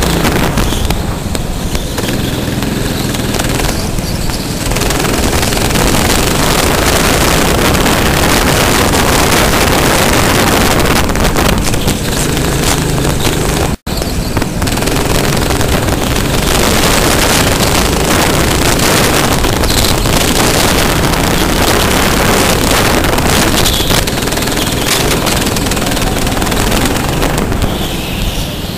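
Go-kart engine running at racing speed, its pitch rising and falling, under heavy wind rush on the microphone. The sound cuts out sharply for a split second about halfway through.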